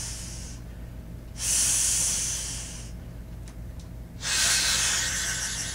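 A man imitating food sizzling in a pot with his mouth: long hissing 'tsss' sounds, each starting sharply and fading away. One trails off at the start, another comes about a second and a half in, and a third about four seconds in.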